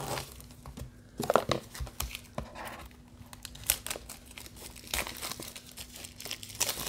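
Clear plastic shrink-wrap being torn and peeled off a smartphone's cardboard box: irregular crinkling and crackling of the thin film.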